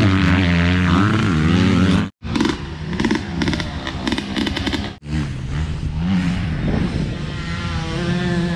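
Dirt bike engines revving and running as the bikes ride the motocross track. The sound cuts out abruptly twice, about two and five seconds in, with a different engine sound after each cut.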